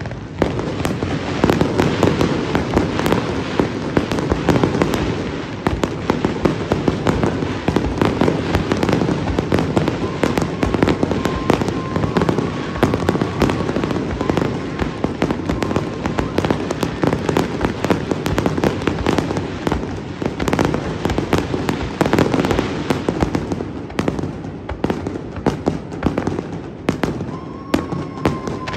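Fireworks display: a dense, continuous barrage of aerial shells bursting and crackling, many reports a second, thinning somewhat near the end.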